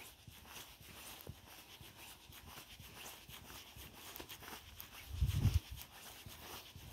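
Faint footsteps on a gravel path, a soft tick every half second or so, with a brief low rumble about five seconds in.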